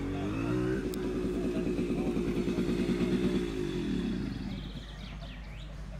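A vehicle engine running up in pitch, holding a steady note for about three seconds, then dropping in pitch and fading away about four seconds in.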